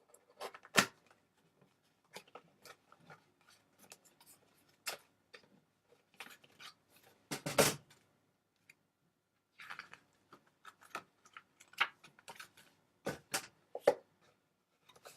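Packaging being handled and opened: irregular clicks, taps and rustles of cardboard and plastic, with a few louder knocks scattered through.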